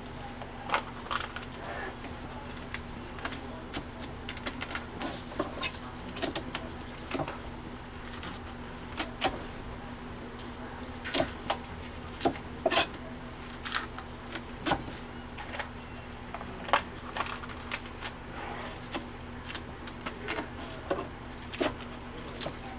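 Kitchen knife cutting up a red snow crab on a plastic cutting board: irregular sharp clicks and taps of the blade against the board and shell. A steady low hum runs underneath.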